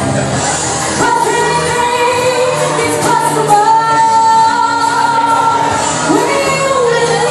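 A woman singing a solo into a microphone, amplified through the hall's loudspeakers, holding long notes.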